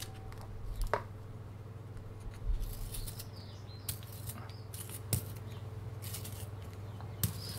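Brass M+R Pollux hand-held pencil sharpener shaving the wood of a pencil as it is turned: short, irregular scraping strokes of the blade cutting wood, several in a row with gaps between.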